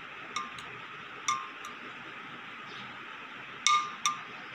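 Light bell-like clinks, each ringing briefly at the same pitch, struck irregularly several times over a steady hiss, with the loudest strikes close together near the end.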